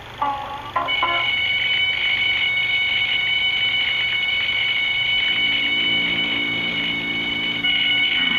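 Smoke alarm in a cartoon soundtrack, sounding one continuous shrill tone from about a second in, just after a few banjo notes. It is heard through a 16 mm film projector's speaker, and the alarm signals a fire from a candle in the tent.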